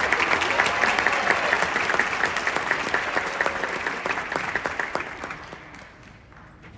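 Audience applauding, a dense clapping that fades away about five to six seconds in.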